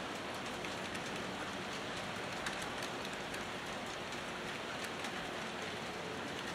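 HO scale model trains running on the layout: a steady rolling hiss and rumble with faint rapid clicking.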